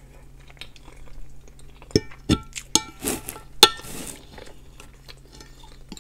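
Metal knife and fork clinking and scraping on a white ceramic plate while cutting food. Several sharp clinks with a brief ring come about two to four seconds in.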